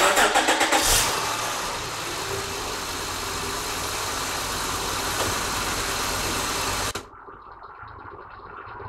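Honda Accord engine starting, with a burst of rapid pulses in the first second, then running steadily. The sound cuts off abruptly about seven seconds in.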